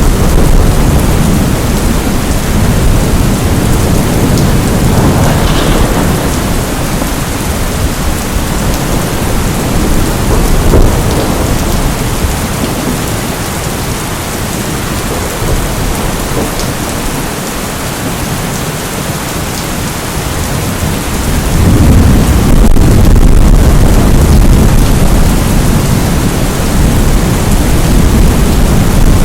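Steady heavy rain with rolling thunder rumbling low underneath; the rumble eases for a while, then swells again about two-thirds of the way through.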